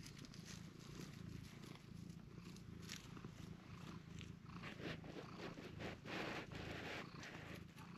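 A cat purring steadily as its chin and cheek are scratched, a contented purr. Scratchy rustling of fingers rubbing through its fur grows louder from about halfway in.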